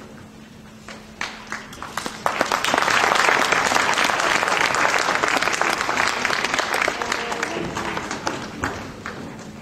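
Audience applauding: a few scattered claps, then full applause that swells about two seconds in and slowly thins out near the end.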